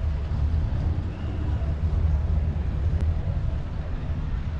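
Steady low rumble of a car engine and road noise at slow street speed.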